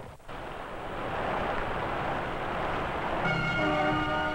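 A fire engine going by with a steady rushing noise. About three seconds in, its horn starts sounding as one steady, multi-note blast.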